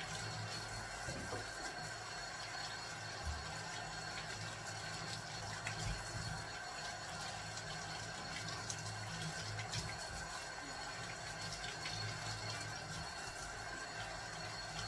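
Kitchen tap running steadily into the sink while something is washed under it by hand, with a few small knocks.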